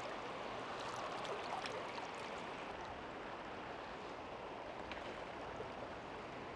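Shallow river current flowing: a steady, even rush of water with a few faint ticks.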